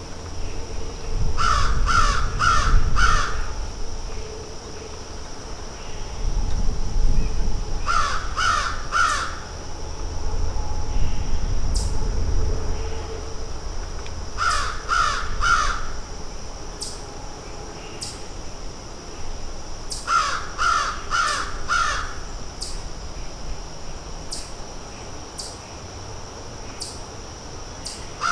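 Crows cawing in bouts of four or five quick caws, a bout about every six seconds, four bouts in all, over a steady high hiss and a low rumble.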